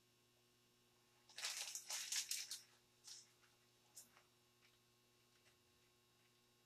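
Plastic piping bag of green icing crinkling and crackling as it is squeezed to pipe grass, a dense burst of crackles about a second in lasting over a second, then a few short crackles.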